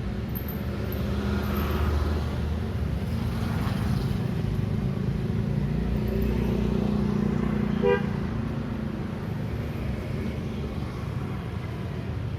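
City street traffic: vehicle engines running and passing in swells, with one short horn beep about eight seconds in.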